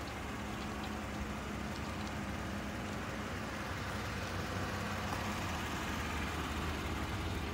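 Chevrolet Tahoe's 5.3-litre V8 idling with a steady low hum.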